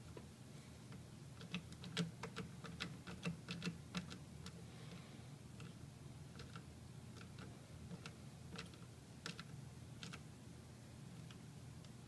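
Nut driver turning a small nut down a bolt on an amplifier chassis to fasten the ground-wire terminal: a quick run of small metallic clicks and ticks about a second and a half in, then scattered single clicks.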